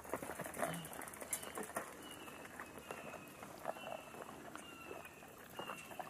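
Outdoor marsh ambience: a short high chirp, falling slightly in pitch, repeats about once a second over scattered clicks and rustles.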